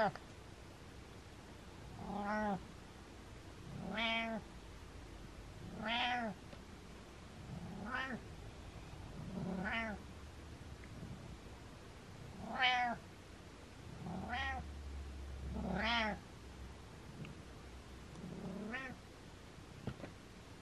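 Domestic cat meowing over and over: about nine short meows, one every two seconds or so, each rising and then falling in pitch.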